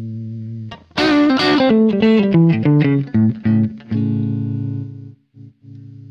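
ST-shaped electric guitar with Häussel TE Broad pickups being played: a held chord fading away, then from about a second in a quick run of single notes and chords, then another held chord that fades, with a few short clipped notes near the end.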